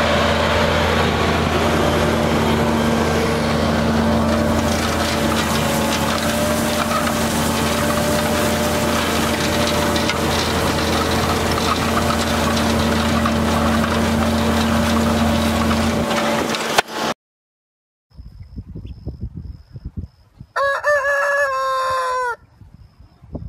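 Tractor engine running steadily under load while pulling a cultivator through the soil, cutting off suddenly. After a short quiet gap a rooster crows once, about 1.5 s long, near the end.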